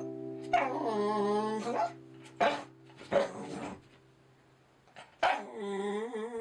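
A dog vocalising: two drawn-out calls with wavering pitch and a couple of short barks between them, over steady music tones that fade out in the first few seconds.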